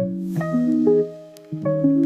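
Background music of held notes, dropping away a little past a second in and coming back in about half a second later.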